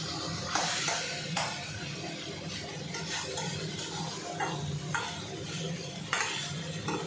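Metal spatula stirring and scraping mutton pieces in thick spice masala around a steel kadai, the meat sizzling as it fries, with irregular scrapes against the pan.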